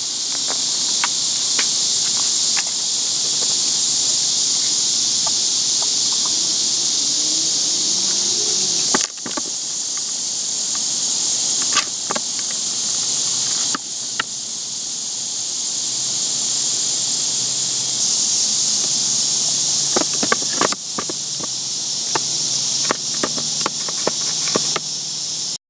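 A loud, steady, high-pitched insect chorus, with scattered sharp taps of animal paws on a clear plastic sheet, several in quick clusters near the end.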